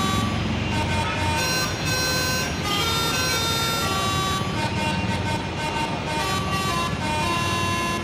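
Multi-tone bus 'telolet' horn playing a tune of held notes that step up and down in pitch about twice a second, over a low steady hum.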